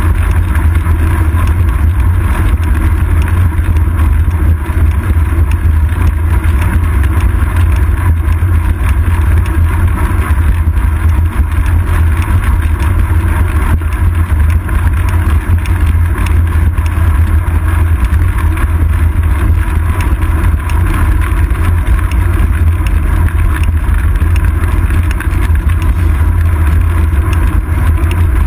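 Steady low rumble of wind and road vibration from a bicycle in motion, heard through a seat-post-mounted GoPro Hero 2 in its housing.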